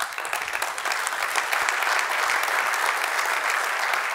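Audience applauding: dense, steady clapping from many hands that breaks out suddenly.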